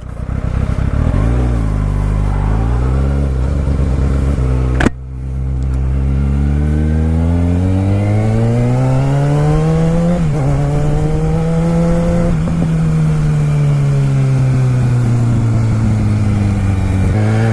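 Kawasaki ZX-6R sport bike's inline-four engine running through an M4 Street Slayer exhaust while being ridden. The engine revs up and down, a sharp click sounds a little under five seconds in, then it pulls up in pitch under acceleration, dips around ten seconds in, and holds a steady, slowly falling drone.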